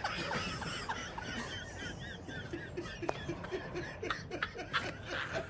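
Men laughing hard: high, wavering wheezy laughter, then a run of short rhythmic laugh pulses, over a steady low rumble of the moving train.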